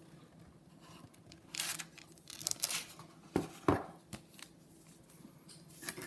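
Bagged comic books being handled: crinkling plastic for a second or so, then two light knocks about three and a half seconds in.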